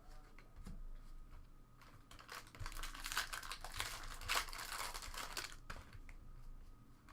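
Trading-card pack wrapper being torn open and crinkled for about three and a half seconds, starting about two seconds in, with scattered light clicks of card handling around it.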